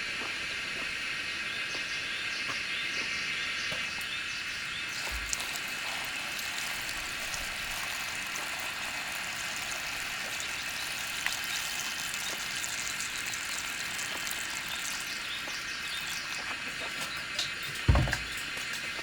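A steady high-pitched hiss of background noise, with a dull low thump near the end.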